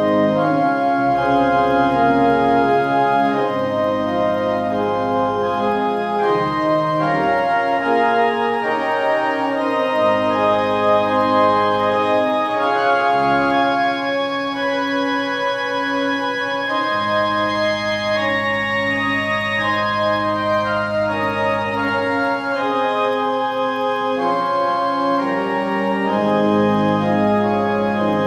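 Organ playing a slow prelude in held, sustained chords, with deep bass notes that change every few seconds beneath them.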